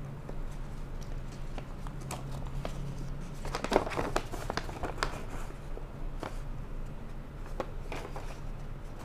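Paper rustling and crinkling as a folded instruction manual is handled and unfolded, in short irregular bursts that are loudest about four seconds in.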